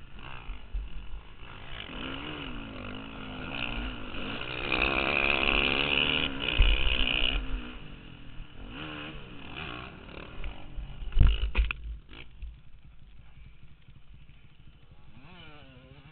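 Dirt bike engine revving up and down over a motocross track, loudest in the middle, with wind rumbling on the bike-mounted microphone. Sharp knocks come about eleven seconds in, as the bike goes down, and the engine then drops quieter, with one brief rev near the end.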